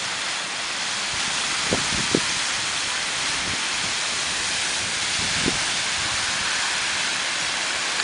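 Geyser erupting: a steady rushing hiss of water and steam, with a few brief faint knocks around two seconds in and again later.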